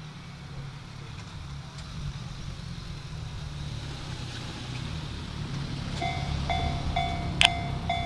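A low steady rumble, then about six seconds in a railway level-crossing warning bell starts ringing, about two strikes a second, signalling that a train is approaching. A single sharp click sounds over the bell shortly after it starts.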